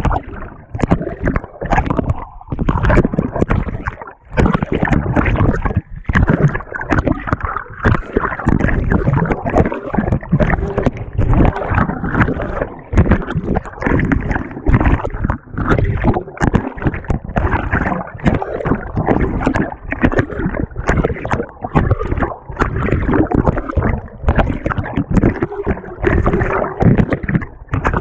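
Water and laundry sloshing and churning in the tub of a GE GTW220ACKWW top-load washer, heard from a camera fixed to the agitator. The agitator swings back and forth, so the splashing comes in quick uneven surges with brief dips between them.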